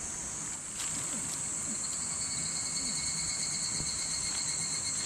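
Insects chirring in a steady, high-pitched chorus, with a second, lower steady buzz joining in about two seconds in.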